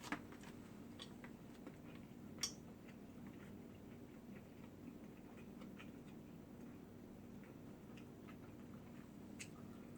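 Near silence: a low steady hum with a few faint, short clicks, the sharpest about two and a half seconds in.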